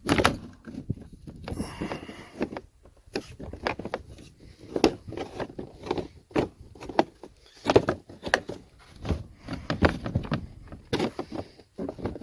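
A run of irregular knocks and clicks with rustling between them, no engine running.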